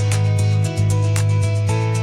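Background music with a steady beat, strong bass and held tones, with a plucked-guitar quality.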